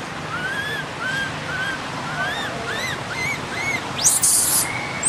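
Baby long-tailed macaque crying in distress: a run of short, high squeals, each rising and falling, about two a second, then a loud harsh scream about four seconds in.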